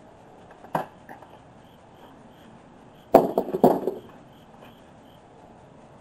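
Handling noise from harvesting potatoes by hand: a single click just under a second in, then a short burst of crunching knocks about three seconds in, as dried potato vines are pulled and hands work through loose soil in a raised bed.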